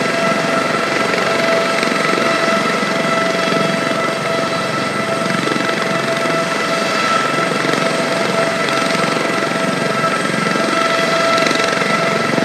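Eurocopter AS 365 N2 Dauphin helicopter running on the ground on its twin Turbomeca Arriel turboshaft engines. A steady high turbine whine holds one pitch over the rotor and engine noise.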